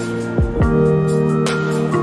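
Background music: sustained instrumental notes over a regular beat, with two deep bass notes that fall in pitch about half a second in.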